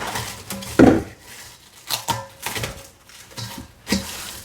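Plastic cling wrap crinkling and crackling as it is stretched and pressed over a bowl, in irregular ticks, with one louder knock about a second in.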